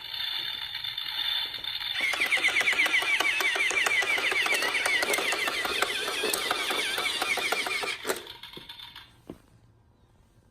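A toy's small mechanism running: a steady hum, then fast, dense clicking and whirring from about two seconds in. The clicking stops suddenly about eight seconds in.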